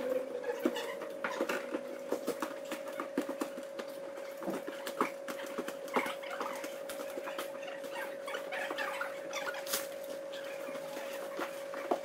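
Boat canopy being assembled: irregular rustling of the canvas and clicks of its frame and fasteners, over a steady faint hum.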